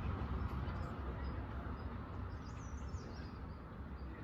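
Outdoor ambience: a steady, noisy low rumble with a few faint, high bird chirps about two and a half seconds in.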